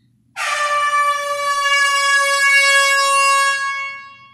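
Air horn sound effect played from a TV: one long, steady blast starting about half a second in, dipping slightly in pitch and fading out near the end.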